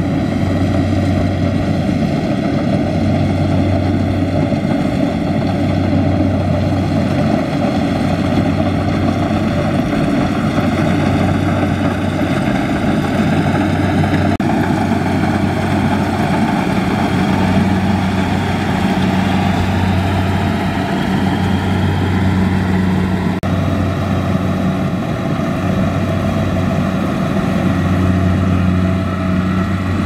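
Kubota combine harvester's diesel engine and machinery running steadily, with a low hum that swells and fades about every two seconds. The sound changes abruptly twice, about halfway and three quarters of the way in.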